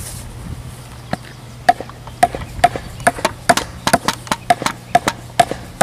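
Hammer blows on a rink board bracket, driving it down into the ground: a fast series of sharp knocks, about three a second, starting about a second in.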